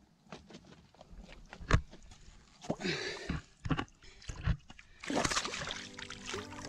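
A golden perch being released into shallow lake water from the rocks: water sloshing and splashing as the fish goes in and swims off, with two longer splashes about three and five seconds in. Knocks and scuffs on the rocks, the loudest a sharp knock under two seconds in.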